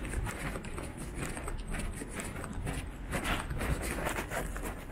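Footsteps walking on pavement, a regular run of short steps, over a steady low background hum.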